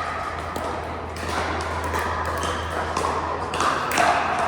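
Pickleball paddles striking the hard plastic ball: sharp pops at irregular intervals, a few in the span, with two close together near the end.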